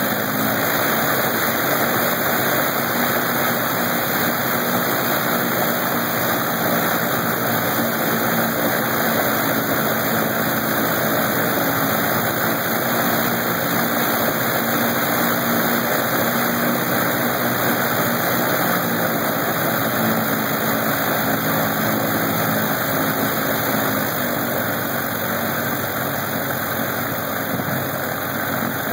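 Lycoming R-680 nine-cylinder radial engine running steadily with its propeller spinning, getting a little quieter about 24 seconds in.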